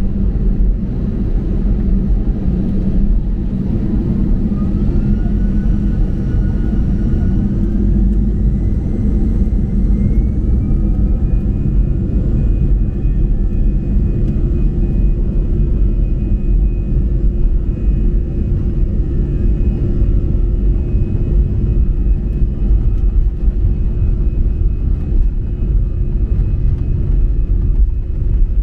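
Airbus A320's turbofan engines spooling up to take-off thrust, heard from inside the cabin over the wing. A whine climbs in two or three steps over several seconds, then holds steady over a heavy rumble as the airliner rolls down the runway.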